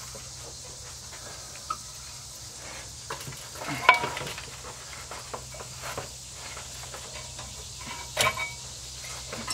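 Light metal clicks and scrapes as brake pads and hand tools are handled at a disc brake caliper bracket, with two sharper ringing metal clinks, about four seconds in and about eight seconds in.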